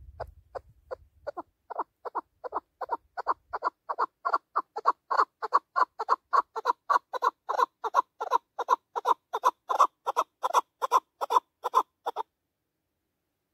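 Chukar partridge calling: a long run of short clucking notes, about four a second, growing louder over the first few seconds and then stopping abruptly about a second and a half before the end.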